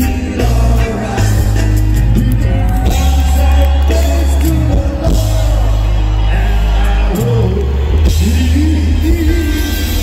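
Live reggae band playing with a heavy, steady bass line, and a male lead singer singing into the microphone in phrases over it.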